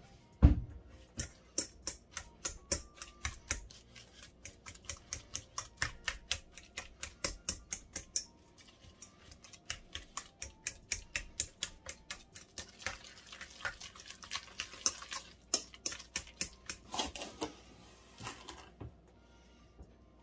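A fork mashing ripe bananas in a stainless steel bowl, its tines clicking against the metal in a quick, uneven rhythm of about four clicks a second, with a loud knock about half a second in. The clicking pauses briefly around the middle and stops near the end.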